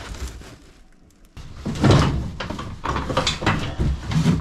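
Rummaging through cardboard boxes of used snowmobile parts on a shelf: cardboard scraping and rustling, and metal parts knocking and clunking at irregular moments, starting about a second and a half in.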